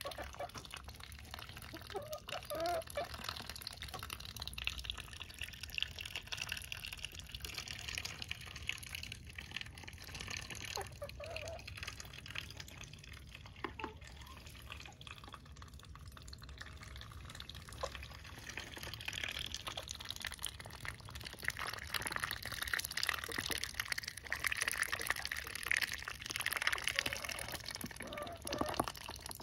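Ducks dabbling and feeding in a tub of water with chopped greens: a rapid, irregular wet clicking, slurping and dripping as their bills sieve the water. The dabbling thins out for a few seconds in the middle, then grows busier toward the end.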